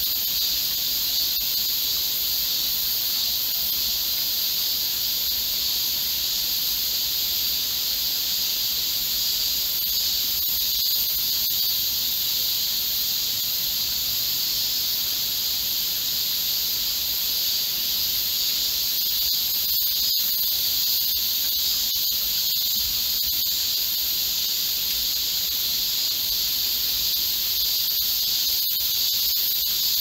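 A steady, high-pitched chorus of cicadas over the even hiss of rain falling on forest trees.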